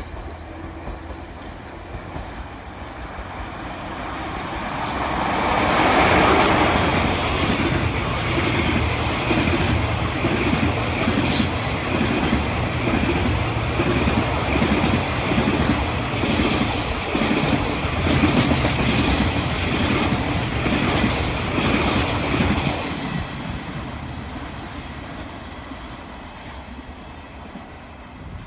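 JR freight train passing: the locomotive approaches and goes by about six seconds in, followed by a long string of freight wagons whose wheels beat out a steady, rhythmic clickety-clack over the rail joints. The sound fades away after about twenty-three seconds as the train recedes.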